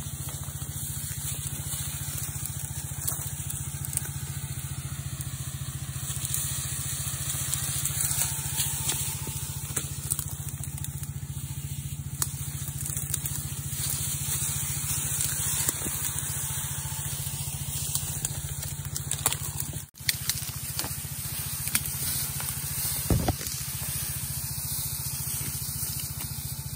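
Spray gun hissing as it sprays a herbicide mist onto weeds. Under it runs the steady hum of the small Robin 3.5 hp petrol engine that drives the power sprayer's pump. The sound cuts out for a moment about two-thirds of the way through.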